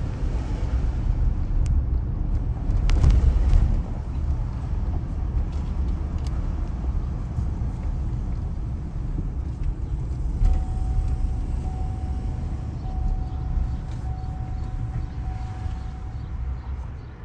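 Chevrolet Silverado's 5.3 L V8 running smoothly with no misfire, the misfire having been cured by replacing a broken spark plug. About ten seconds in, a thin steady tone starts sounding on and off.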